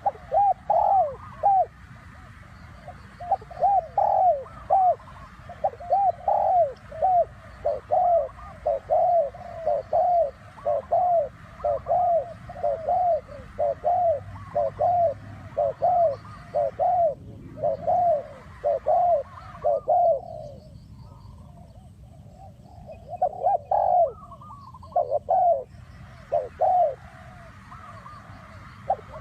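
Spotted dove cooing: a long run of short, evenly spaced coos, about three every two seconds, breaking off for a few seconds about two-thirds through and then starting again.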